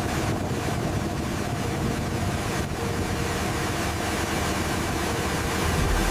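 Piston aircraft engine running steadily, a dense, even noise with wind noise mixed in.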